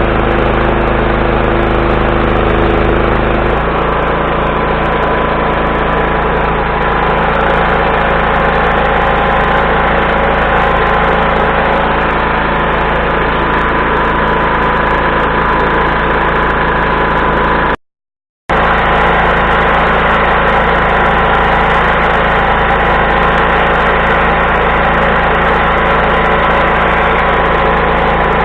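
Engine of an engine-driven welder running steadily, its low tones shifting slightly about three and a half seconds in. The sound drops out completely for a moment about 18 seconds in.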